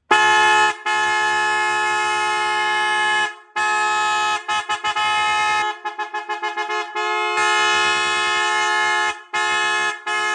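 Red Elephant SF110 12-volt electric safety horn sounding in a series of long steady blasts, with a quick run of short toots about four to five seconds in and two short blasts near the end.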